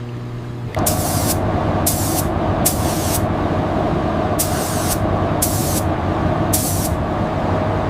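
Compressed-air spray tool hissing in six short bursts, each under half a second, over a steady mechanical hum that starts just under a second in.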